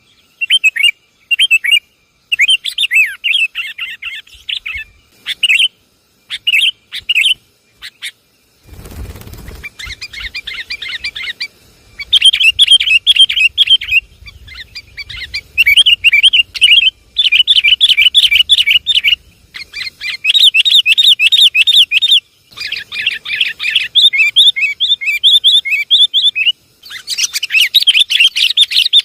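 Sooty-headed bulbul lure calls: loud bursts of bright, rapid chattering calls lasting a second to a few seconds each, separated by short breaks. A brief hiss of noise comes about nine seconds in.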